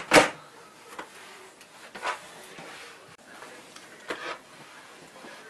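A cleaning cloth wiping over a computer keyboard and a desktop: three short rubbing swipes about two seconds apart, the first the loudest.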